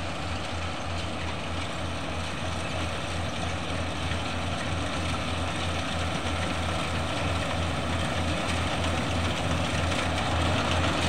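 Compact rice combine harvester's diesel engine running steadily under load while it cuts paddy, with a fast low throb. It grows slowly louder as the machine comes closer.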